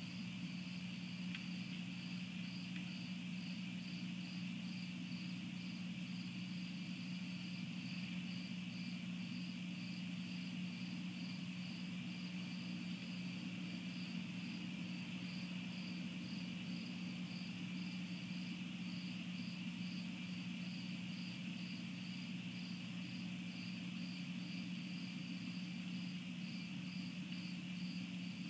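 Crickets chirping steadily at night, about two chirps a second, over a constant low hum.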